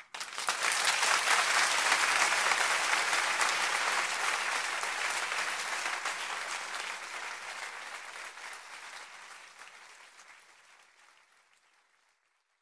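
A crowd applauding at the end of a sung piece. The clapping starts suddenly and is at full strength within about half a second. From about halfway through it dies away slowly, and it has stopped by the end.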